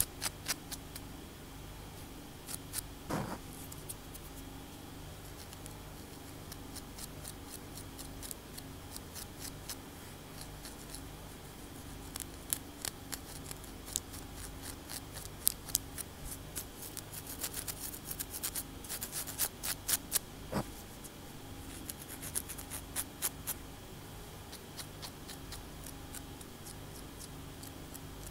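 Long acrylic fingernails scratching and tapping on a cornrowed scalp, making crisp, scratchy clicks. The clicks come sparsely at first, then in quick dense clusters through the middle and back half.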